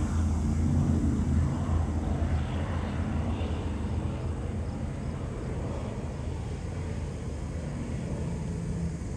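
Norfolk Southern diesel locomotive engine running with a steady low hum as it moves its train slowly through the yard.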